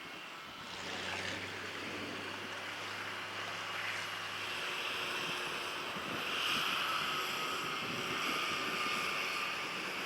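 Tractor engine running under load while ploughing, with wind buffeting the microphone; the noise swells a little about a second in.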